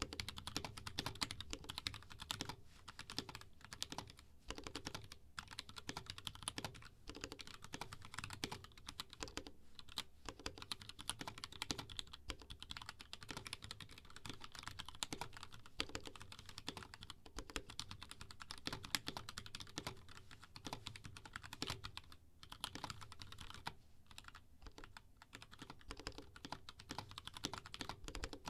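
Steady fast typing on a BM60 60% mechanical keyboard with unlubed KS3 Black switches in an aluminium plate and HK Gaming bow keycaps: a quick stream of keystroke clacks, with a few short pauses.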